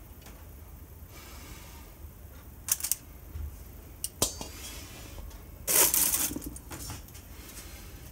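A few short metallic clinks on a wire rack in a frying pan, then a louder, longer clatter about six seconds in as a stainless steel dome lid is set down onto the pan.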